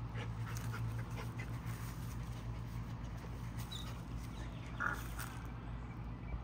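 A Rottweiler sniffing and nosing through grass: soft snuffles, clicks and rustles, with one short sound about five seconds in. A steady low hum runs underneath.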